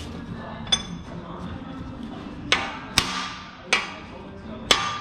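Hammer blows on metal driving a solid spherical trailing arm bushing into the trailing arm: five separate sharp strikes, each with a brief ring, the last four coming about every half to one second.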